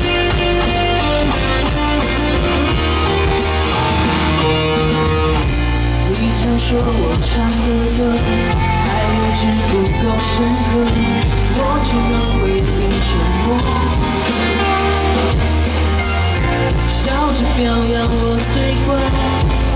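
Live pop-rock song: a band with electric guitar and drums playing, and a woman singing lead into a microphone from about six seconds in.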